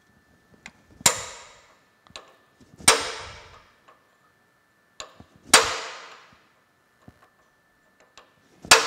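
A hammer strikes a pin punch, driving a steel taper pin home through a shaft collar. There are four sharp metallic blows, each ringing for about a second, every two to three seconds, and each is preceded by a light setting tap.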